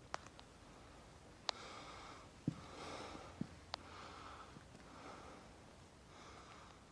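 A person breathing heavily in repeated faint breaths, out of breath from climbing uphill. A few sharp clicks and two soft thumps come in the first half.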